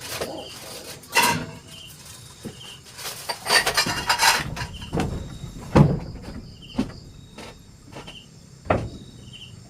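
Irregular knocks and clatter of things being handled, with a sharp knock about six seconds in and another near the end. Short insect chirps repeat faintly throughout.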